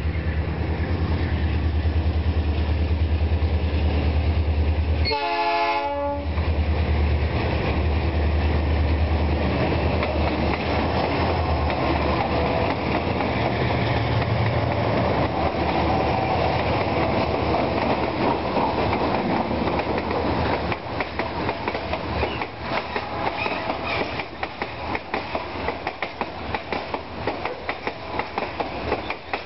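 Freight train led by four diesel-electric locomotives, including an SD40T-2 and a C30-7, passing close at speed. The locomotives' diesel engines drone, with a short horn blast about five seconds in. From about twenty seconds the boxcars go by, their wheels clattering over the rails.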